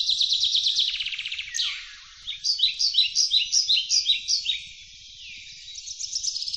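Wild birds calling in forest over a steady high insect buzz: a fast trill in the first second or so, then a run of short falling chirps about three or four a second, and another fast trill near the end.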